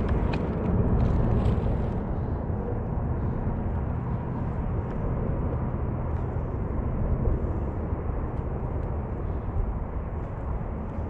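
Steady low rumble of wind buffeting the microphone, with a few faint light ticks.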